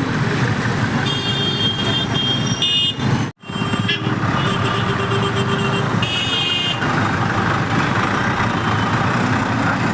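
Busy road traffic: vehicle engines running with horns honking, once between about one and three seconds in and again around six seconds. The sound drops out for an instant just after three seconds.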